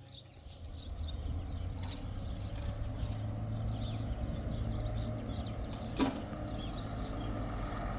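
Truck engine running steadily with a low, even hum. There is a single sharp click about six seconds in.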